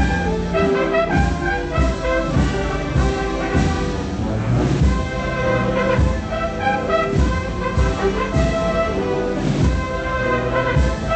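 Procession band playing a marcha procesional, a brass melody over a steady drum beat.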